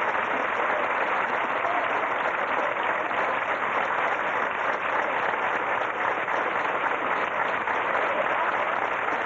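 Theatre audience applauding steadily for the ballerina's bow.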